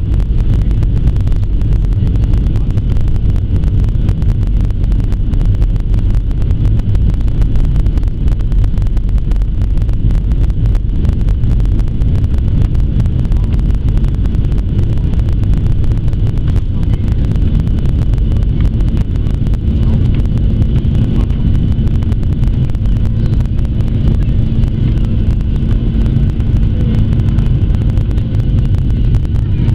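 Boeing 737-700's CFM56-7B jet engines at takeoff thrust, heard inside the cabin over the wing: a loud, steady rush of engine and airflow noise through the takeoff roll and liftoff. A low steady hum joins about twenty seconds in.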